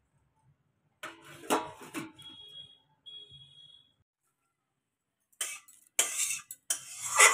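Steel kitchenware clanking. A steel plate is set over a steel bowl about a second in, followed by two short high ringing tones. From about five and a half seconds, steel utensils scrape and clatter against a kadai.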